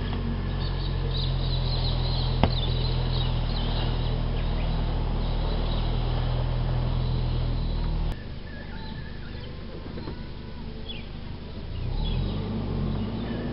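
Ute engine running steadily as it tows a boat up a muddy bank on a snatch strap, its note dropping away suddenly about eight seconds in and rising again near the end. Birds chirp throughout, with one sharp click early on.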